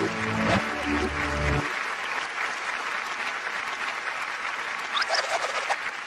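Audience applauding steadily, over the last notes of a song that stops about a second and a half in. A couple of short rising calls from the crowd come about five seconds in.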